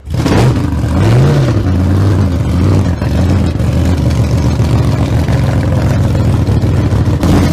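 A loud engine, likely a car or motorcycle, running with a brief rev up and back down about a second in, then running steadily.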